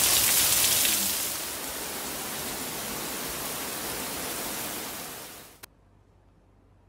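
Heavy monsoon rain pouring down in a steady hiss. It drops a little in level about a second in, then fades away and cuts off with a click at about five and a half seconds, leaving near silence.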